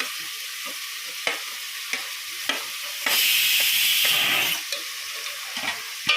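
Chopped onion and cabbage sizzling in ghee in a pan, stirred with a spoon that scrapes and knocks against the pan now and then. The sizzle gets louder for about a second and a half from about three seconds in.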